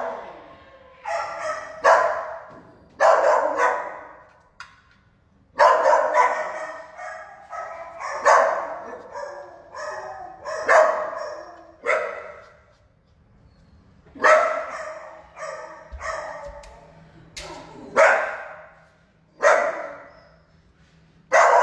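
Shelter dogs barking over and over, a sharp bark every second or two with short pauses. Each bark rings on in the hard, tiled kennel room.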